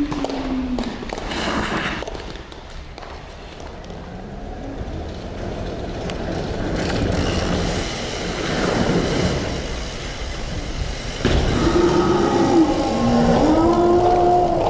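Skateboard wheels rolling over pavement, the rolling noise building and fading, with a hard knock near the end.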